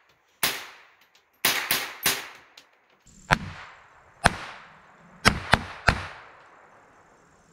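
Smith & Wesson M&P15-22 semi-automatic rifle firing supersonic .22 LR rounds: about nine sharp shots in uneven groups, each cracking and trailing off in an echo.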